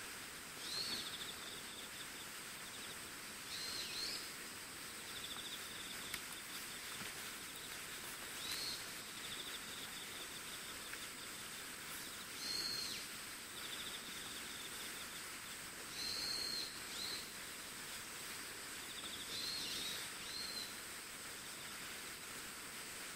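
Outdoor field ambience: short, high bird calls repeating about every three to four seconds, some followed by a faint buzzing trill, over a steady hiss.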